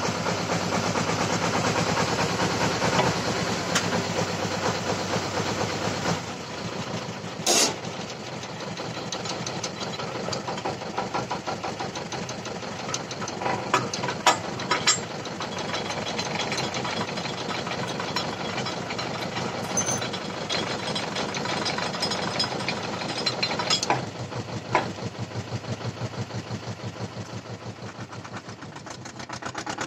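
T-25 tractor's two-cylinder air-cooled diesel idling steadily, with a few sharp metal clanks from the trailer being coupled to the tractor's rear hitch.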